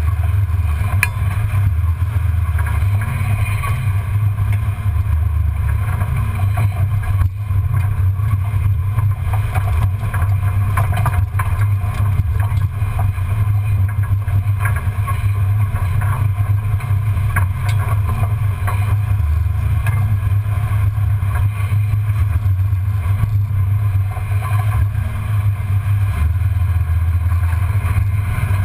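1994 Ford Bronco's V8 and drivetrain running at low speed off-road, heard from under the chassis as a steady low rumble with occasional light clicks and rattles.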